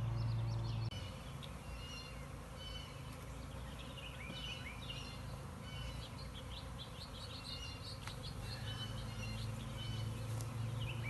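Songbirds chirping and calling throughout, over the low buzzing hum of a honeybee swarm. The hum is loud for the first second, drops away, and swells again from about eight seconds in.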